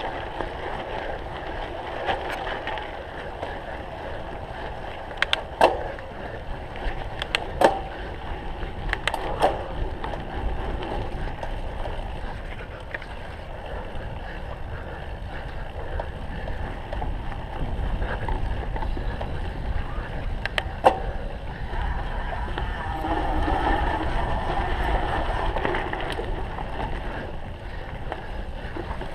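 Cyclocross bike ridden hard off-road: a steady rumble of wind buffeting the microphone and tyres on rough ground, broken by sharp knocks and rattles from the bike, a cluster of them a few seconds in and one more about two-thirds through.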